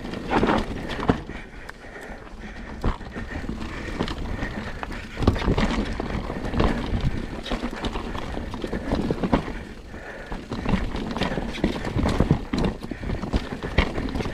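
Mountain bike riding down a rough trail: the frame, chain and tyres rattle and knock irregularly over roots and rocks, with a low rumble beneath.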